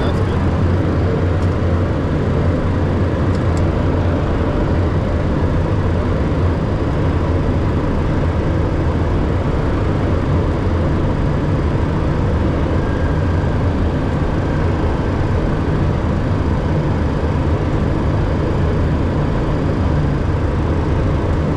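Steady cockpit noise of a Cessna Citation II jet in flight: the even hum of its twin Pratt & Whitney JT15D turbofans mixed with rushing airflow, unchanging throughout.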